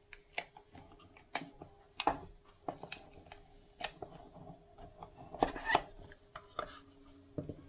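Small cardboard product box being handled and opened: irregular taps and clicks of fingers on the card and the rub of paperboard as the box slides out of its sleeve and the lid is lifted, over a faint steady hum.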